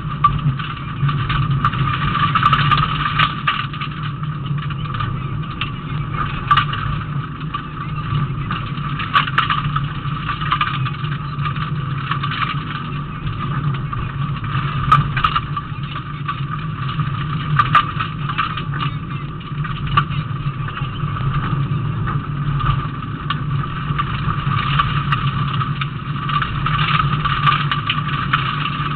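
Rally car engine running steadily at low, even revs, heard from inside the cabin. Scattered short knocks and rattles come from the car jolting over the rough dirt road.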